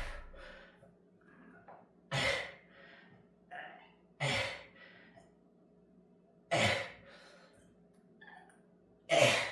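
A person exhaling hard in short puffs, five times about two seconds apart, the breathing of someone doing push-ups.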